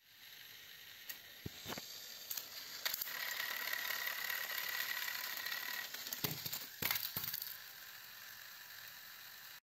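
Small gear motors of battery-powered toy trains whining and clattering on plastic track, with a steady high whine in the middle. About six to seven seconds in come several loud plastic knocks as the toys tumble off the track.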